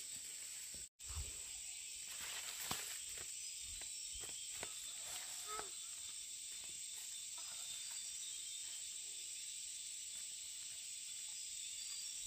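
Steady high-pitched insect drone with a hiss, with scattered faint clicks and rustles. The audio drops out for an instant about a second in.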